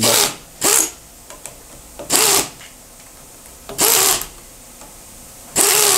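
Pistol-grip pneumatic air tool run in five short bursts, each under half a second and about every 1.7 s, spinning out the quick-change fasteners that hold a vise to a modular fixture plate.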